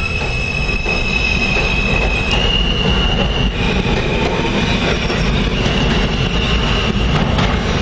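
New York City subway train running through the station and pulling away, its steel wheels squealing on the rails over a heavy rumble. The squeal is a high steady whine that shifts pitch a few times.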